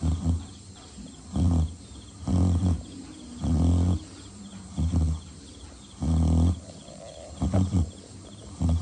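A pig snoring: short, low snores repeating about once a second.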